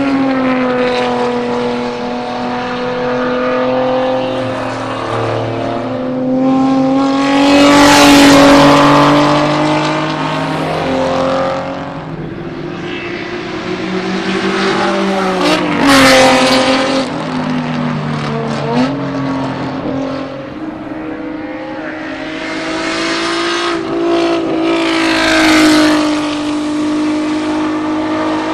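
Historic touring race cars, led by the Alfa Romeo GTV6's V6, passing at speed under high revs, their engine pitch rising and then dropping as each goes by. The loudest passes come about a quarter of the way in and midway, with a sharp fall in pitch, and another comes near the end.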